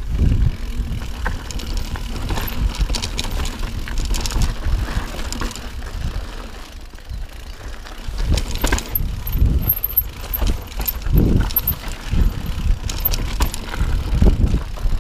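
Mountain bike ridden fast over a rocky trail: irregular knocks and rattles from the tyres, chain and frame hitting stones, over a steady low rumble.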